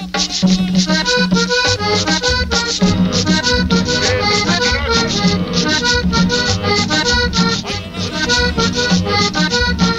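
Cumbia peñonera played over a sonidero sound system: an accordion melody over a steady dance beat, with the bass line coming in about two seconds in.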